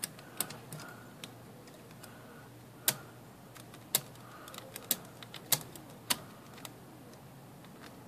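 Sharp, irregular metal clicks and taps of a hand tool against the parts of an IBM Selectric typewriter's mechanism, the loudest about three, four, five and six seconds in, as the cycle clutch pulley hub hangs up and is worked into place.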